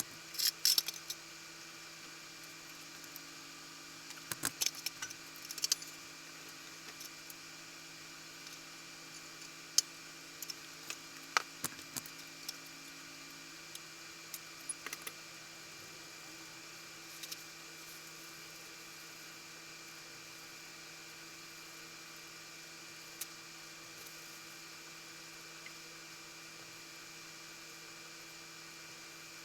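Scattered light clicks and taps, busiest in the first half, over a steady electrical hum.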